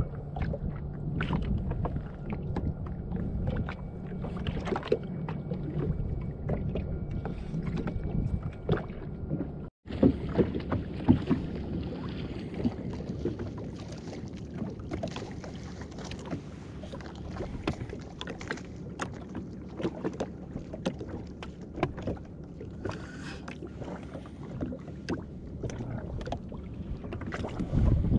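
Small waves lapping and slapping against a drifting jet ski's hull in irregular little knocks and splashes, over a low rumble of wind on the microphone. The sound drops out briefly at an edit about ten seconds in and comes back brighter.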